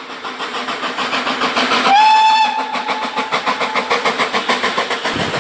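Steam locomotive working hard, its exhaust beating in a quick, even rhythm. The whistle sounds about two seconds in, sliding up briefly, then holds a steady note for about two seconds and fades.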